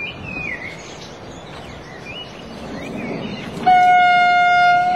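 An approaching train sounds its horn in one steady, single-toned blast of just over a second, near the end. Before the blast, the noise of the train's approach slowly rises.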